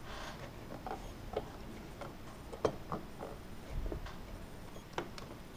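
Small, faint clicks and ticks of a DDR3 SO-DIMM laptop memory module being worked into a Mac mini's memory slot while the slot's retaining clip is held back. There are a handful of short clicks spread through, the sharpest near the middle and about five seconds in.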